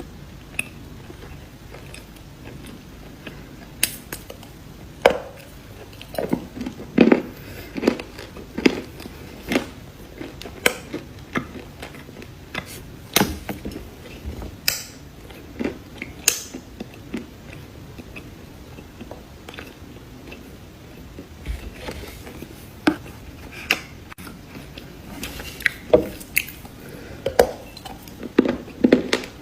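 Close-up crunchy chewing of cookies: irregular sharp crunches, coming thick in two spells with a sparser stretch in the middle.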